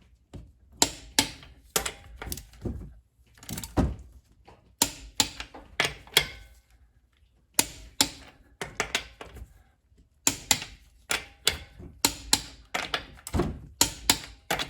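Click-type torque wrench with a 19mm socket working on a wheel's lug nuts, tightening them to 88.5 foot-pounds. It gives short runs of sharp ratcheting clicks, one run after another, with brief pauses between them.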